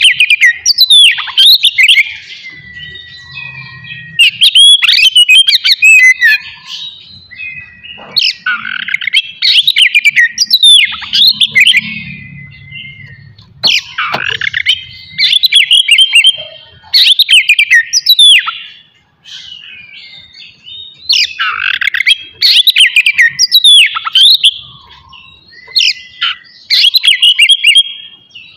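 Oriental magpie-robin (kacer) singing loudly in rapid phrases of sharp rising and falling whistles and chattering notes. The phrases come in bursts every couple of seconds with short pauses between them.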